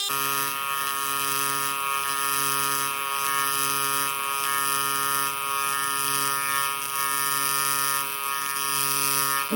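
AC TIG welding arc on aluminum: a steady electrical buzz with a crackling hiss. The low part of the buzz swells and fades about once a second.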